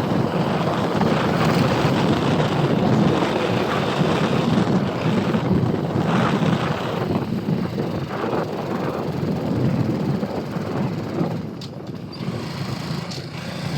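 A vehicle's engine running steadily while on the move, mixed with wind rushing on the microphone, briefly easing about eleven seconds in.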